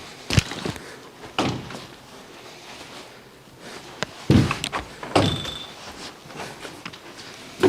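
Doors being opened and knocking against things during a room-by-room search: four or so separate thumps, the loudest about four seconds in.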